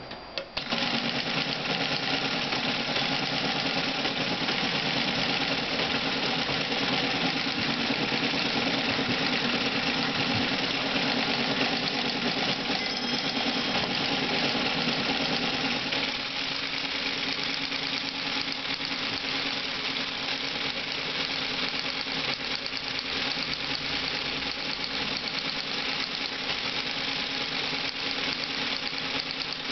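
Leigh-built Teletype KSR-33 switched on about half a second in, its motor and mechanism then running steadily without printing. The tone shifts slightly about sixteen seconds in.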